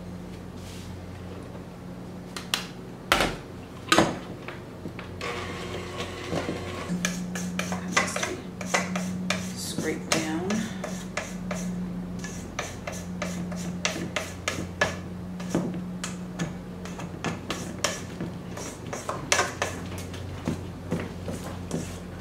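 Spatula stirring and scraping thick frosting around a stainless steel mixing bowl, in a quick uneven run of scrapes and clicks. A few sharp knocks come about three to four seconds in, and a steady low hum runs underneath.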